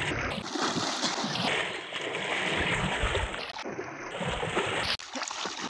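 Water splashing and sloshing as a person wades quickly through shallow river water, legs churning the surface. The splashing breaks off abruptly near the end.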